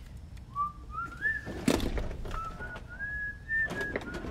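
A man whistling a tune, a string of held notes climbing in steps, with a couple of sharp clicks and knocks of small parts and tools being handled partway through.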